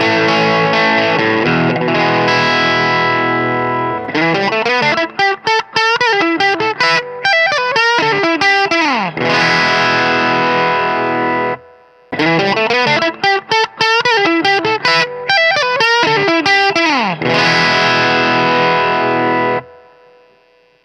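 Overdriven electric guitar: a Reverend Contender 290 with P-90 pickups through the drive channel of a Mesa Boogie Fillmore 25, close-miked on a 10-inch Eminence Legend speaker. A ringing chord is followed by a run of single notes ending in a note sliding down, then a held chord. The same looped phrase plays twice with a short break in the middle, and dies away near the end.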